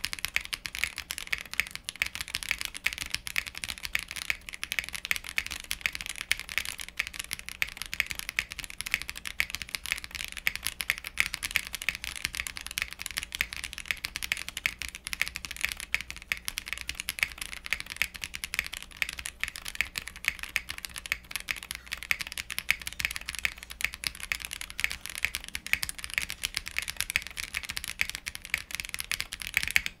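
Continuous typing on a Zoom65 V2.5 mechanical keyboard built with a polycarbonate plate, PCB and case foam, hand-lubed Iced Latte linear switches and GMK keycaps: a dense, even run of keystroke clacks. The alphas have a slightly flat tone, typical of a polycarbonate plate.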